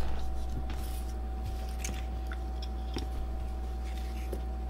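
A few faint, scattered clicks and taps of small action-camera parts being handled, over a steady electrical hum with a thin constant tone.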